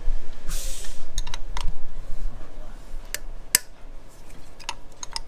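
Hand tools and metal engine parts clicking and clinking in scattered, irregular knocks, with a brief hiss about half a second in.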